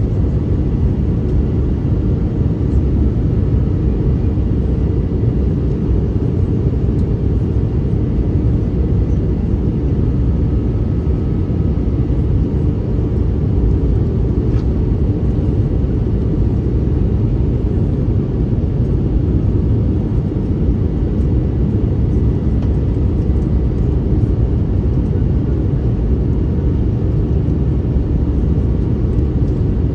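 Steady cabin drone inside an Airbus A321neo, a low, even roar of engine and air noise with no change in pitch or level.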